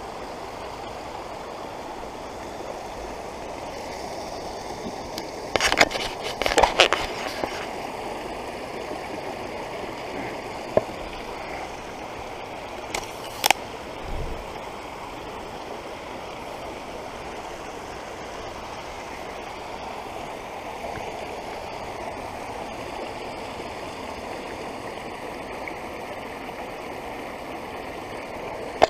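Creek water running through and past a beaver dam of piled sticks, a steady rushing. A cluster of sharp cracks and knocks comes about six seconds in, and another single knock a little past the middle.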